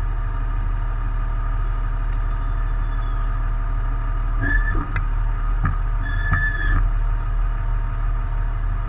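Aircraft tow tug's engine running steadily under load as the tow strap to the C-17 pulls taut. Two short, high-pitched tones sound over it, about four and a half and six seconds in.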